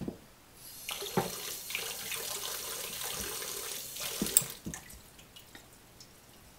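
Water running and splashing in a sink or basin for about three and a half seconds as the hands and whetstone are rinsed between the medium stone and the finishing stone. Sharp knocks at the start and again near the end of the splashing as whetstones are lifted off and set down on the wooden stone holder.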